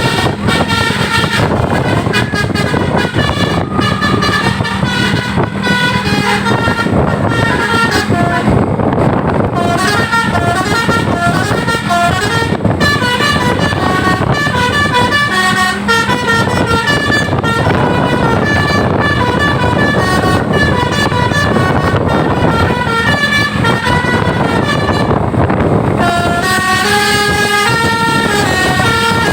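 Telolet bus horns (Basuri multi-tone musical air horns) playing quick stepping melodies over and over, the tunes overlapping, over the noise of bus engines.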